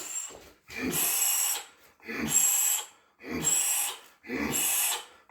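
A Muay Thai fighter kicking a heavy bag, each kick coming with a forceful hissing exhale and a dull low thud at its start, about one kick a second in a steady rhythm.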